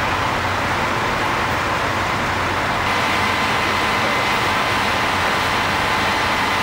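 Steady running noise of a diesel railcar standing at a station platform; the sound shifts slightly about three seconds in.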